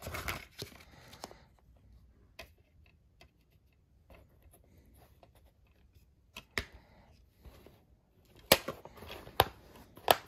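Handling of a plastic DVD keep case: the paper insert rustles in the first second, then discs are lifted from the hub with faint clicks. About a second and a half before the end come three sharp plastic snaps as the case is pressed shut.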